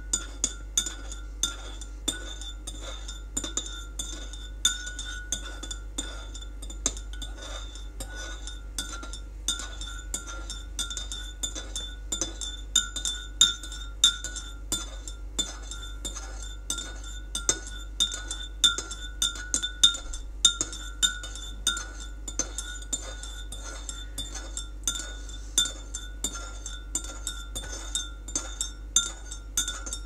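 Light clinking of hard objects such as glass or metal, two or three irregular clinks a second, over a faint steady high ringing tone.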